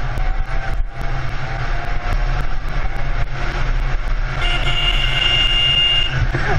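Motorcycle riding in traffic: a steady, loud engine and road rumble, with a high, steady tone for about a second and a half near the end.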